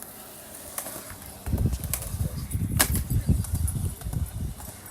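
Skateboard wheels rolling over pavement as a low, uneven rumble that starts about a second and a half in, with a sharp clack from the board near the middle.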